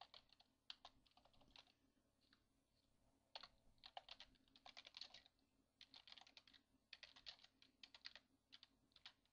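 Faint computer keyboard typing: quick runs of keystrokes with short pauses between them.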